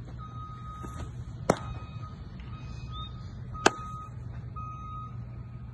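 Two sharp baseball cracks about two seconds apart, the loudest sounds here, over a steady low hum. A high, thin beeping tone sounds on and off throughout.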